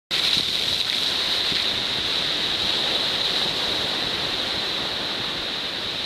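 Rough sea surf breaking against a rocky shore and washing over the rock shelf: a steady rush of water and spray.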